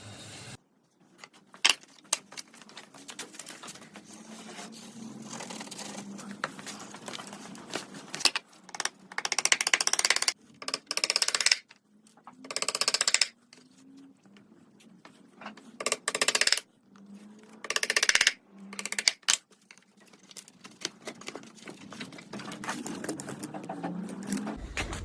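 Wood being worked with hand tools: scattered clicks and taps, with several short scraping strokes lasting up to about two seconds.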